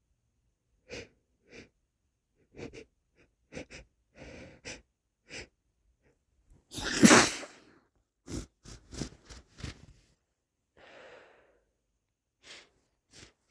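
A person sniffling and taking short breaths, then one loud sneeze about seven seconds in, followed by a quick run of short sniffles.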